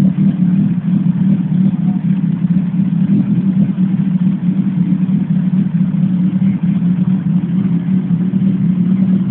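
Kawasaki GPZ900R's inline-four engine idling steadily, an even low hum with no revving.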